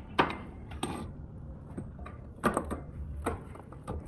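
A handful of separate clinks and knocks as tools and suspension hardware are handled, likely bolts and nuts going back in during a strut install.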